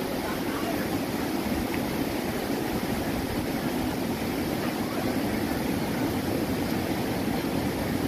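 Steady rush of white water tumbling over a broad rocky river cascade.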